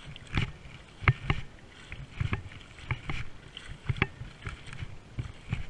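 A series of irregular thumps and scuffs, about one or two a second, from an angler moving on foot with a camera strapped to his chest.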